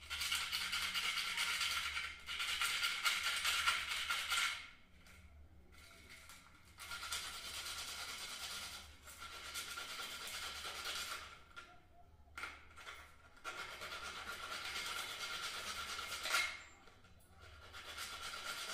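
The small contact points of a contactor being rubbed with emery paper to clean them: a fast, scratchy rasping that comes in four spells of a few seconds each, with short breaks between them.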